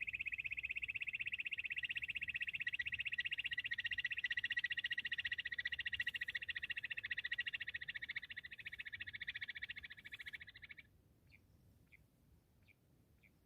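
Bush quail calling: a high, rapidly pulsing trill that stops abruptly about eleven seconds in, after which only faint single chirps remain, spaced a little under a second apart.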